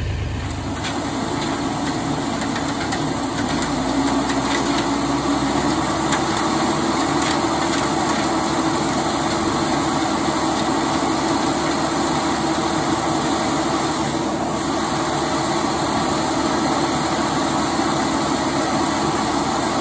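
John Deere 10A hammer mill running off a tractor's PTO, grinding ear corn cob and all: a steady grinding noise with a hum and scattered small knocks, with the tractor engine running underneath.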